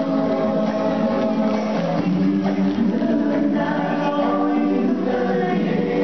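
Music: a song sung by a group of voices in unison, with held notes that move to a new pitch every second or so.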